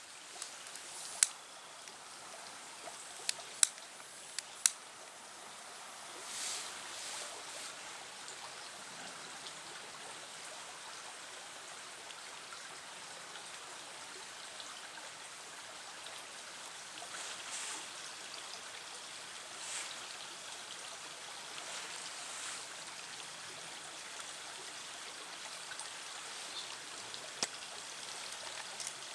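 A steady hiss with a few sharp clicks in the first five seconds.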